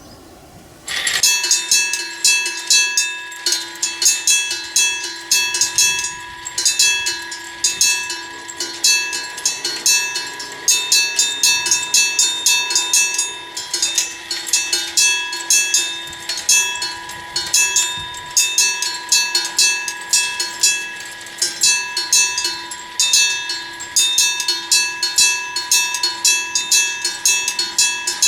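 An electric level-crossing bell starts about a second in: a striker hammers a metal gong rapidly and keeps ringing loudly, warning of an approaching train. The striking is uneven, with brief gaps, typical of the striker missing the gong, which the uploader says happens more and more on this old bell.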